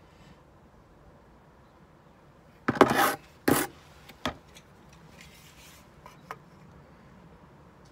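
Two short, loud scraping rubs about three seconds in, then a knock. Near the end come a couple of light taps as a spirit level is set across the air brick and its flanking bricks.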